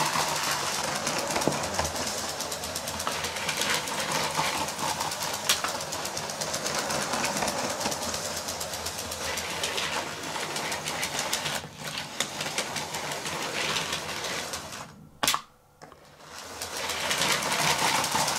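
LEGO 7740 Inter-City train's 12-volt electric motor running, with a dense rapid rattle of the plastic wheels and carriages on the grey plastic track. About fifteen seconds in the sound dies away almost to nothing with a single sharp click, then the train starts up again and the rattle builds.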